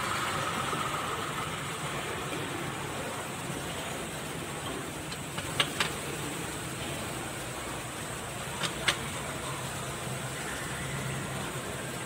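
Two pairs of sharp metal taps, about five and a half and nine seconds in, as a tool strikes the driveshaft coupling on a Kubota B6001 tractor transmission, over a steady engine-like hum.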